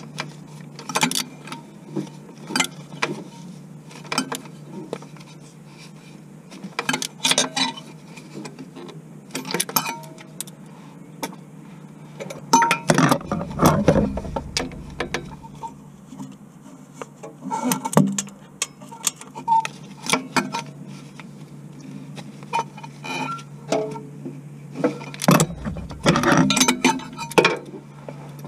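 Metal hand tools clicking and clinking in irregular bursts, with heavier knocks about halfway through and near the end, over a steady low hum.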